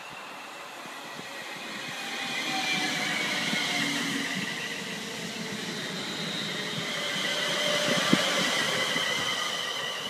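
London Midland Class 350 Desiro electric multiple unit passing along the platform: a high electric whine from its traction equipment that slowly falls in pitch over wheel-on-rail rumble, swelling twice as the coaches go by. A single sharp click about eight seconds in.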